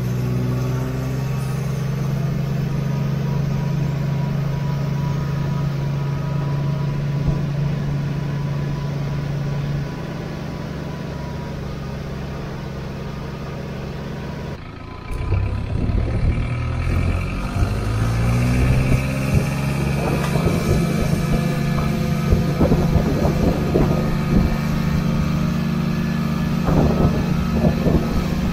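Farm tractor engine running steadily while pulling a hay rake. About halfway through the engine note rises and settles higher, and a run of rattling and knocking from the machinery joins it.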